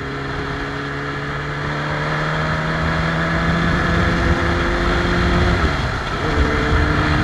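Motorcycle engine running under way, its pitch rising slowly as it accelerates, then dropping sharply about five and a half seconds in before holding steady.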